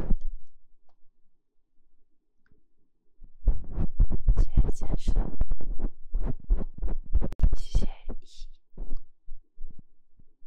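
Fingers rubbing and tapping close on an ASMR microphone: a quick, irregular run of taps and scrapes begins about three seconds in and dies away near the end.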